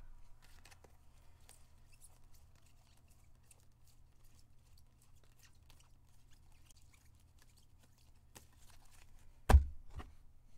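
Faint, scattered clicks and taps of trading cards being handled and sorted on a table, over a low steady hum, with a sharp louder knock about nine and a half seconds in and a softer one just after.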